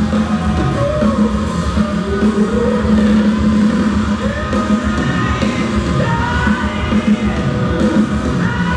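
Hard rock band playing loud live: a male lead vocal sung hard into the mic over drums with cymbal crashes and electric guitar.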